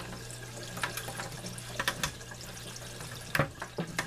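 Water running steadily into the aquaponics fish tank from its inlet, over a steady low hum. Sharp plastic clicks and knocks from handling the bucket and zip tie cut in a few times, the loudest about three and a half seconds in.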